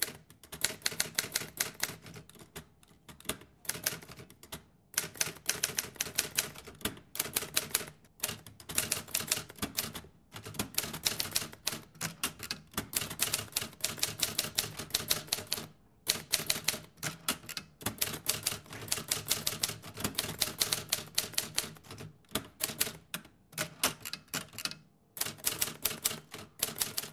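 Typewriter sound effect: rapid keystroke clicks in runs, broken by short pauses every few seconds.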